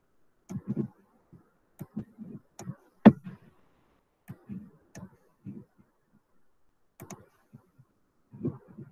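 Computer mouse clicking now and then, with one sharp click about three seconds in louder than the rest, amid faint low mumbling.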